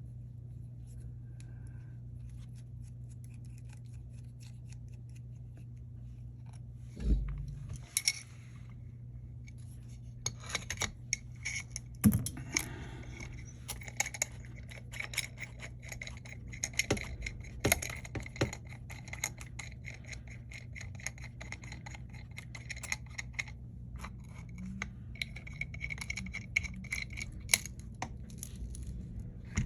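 Small tools clicking and scraping on an iPhone as a precision screwdriver works out its two bottom screws, over a steady low hum. One thump comes about seven seconds in, and the small clicks grow frequent from about ten seconds on.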